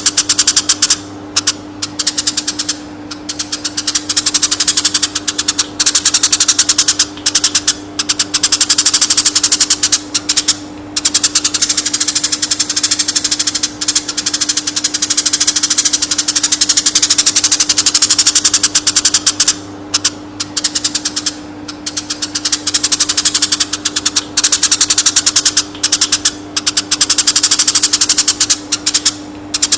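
Eurasian tree sparrow chirping in a fast, dense, unbroken run of calls, with short breaks every few seconds. A steady low hum sits underneath.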